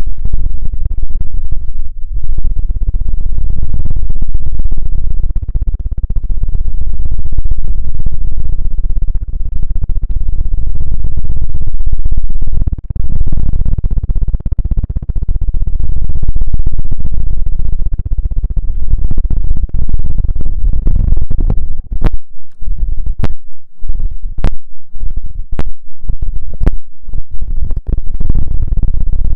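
Loud close-miked ASMR scratching and rubbing, a low, rough rumble right on the microphone. It breaks up into a run of six or seven sharp taps in the last several seconds.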